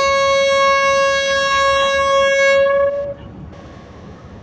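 Horn of a GMU-15 diesel-electric locomotive giving one long, steady single-note blast. The blast cuts off about three seconds in, leaving the locomotive's low rumble.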